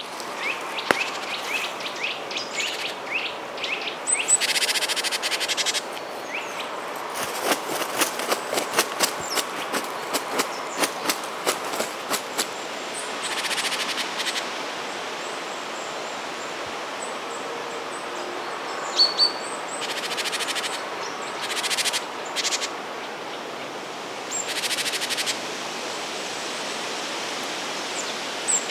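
Outdoor ambience: birds chirping over a steady background hiss, with occasional brief swells of noise and runs of rapid clicks.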